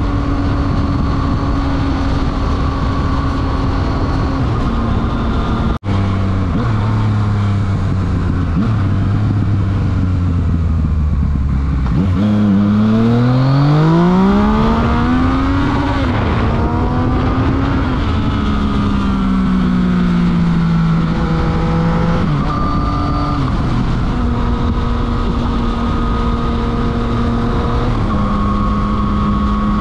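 Yamaha FZ-09's 847 cc inline-three engine through a full Akrapovič exhaust, heard from the rider's seat. It runs steadily at cruising speed, with a brief dropout about six seconds in. Around the middle the note climbs hard under acceleration, then eases and changes pitch in a few steps before settling to a steady cruise.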